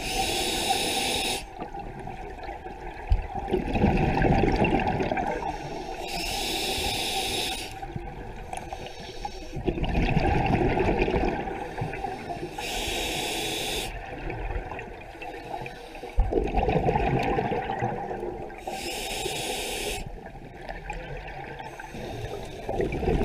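A scuba diver breathing through a regulator underwater, in a regular cycle about every six seconds: a short hiss as air is drawn in, then a longer rush of exhaled bubbles.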